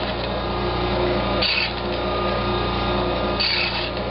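Bandsaw running steadily while slicing bead blanks off a small wooden batten. There are three brief bursts of cutting noise as the blade goes through the wood: one at the start, one about a second and a half in, and one about three and a half seconds in.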